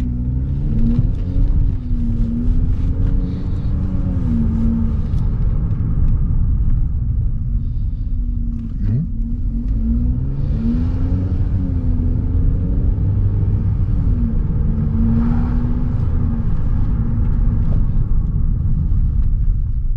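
Car being driven: a steady low engine and road rumble, with the engine note rising and falling several times as it speeds up and slows down. No chirping noise can be picked out.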